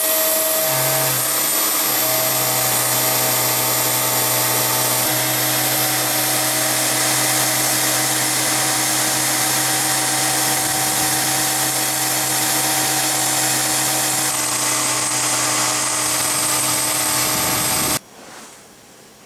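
ShapeOko 2 CNC router's spindle running with a 3 mm two-flute end mill cutting 3 mm aluminium plate: a loud, steady whine with a high tone over the noise of the cut. It cuts off abruptly near the end, leaving only faint room sound.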